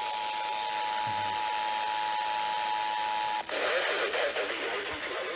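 Emergency Alert System two-tone attention signal sounding steadily over receiver hiss, cutting off abruptly about three and a half seconds in. Noisy, hissy radio audio with a faint voice follows.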